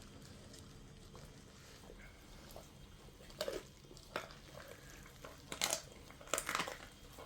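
An animal chewing and crunching a snack, with a few loud crunchy bites in the second half.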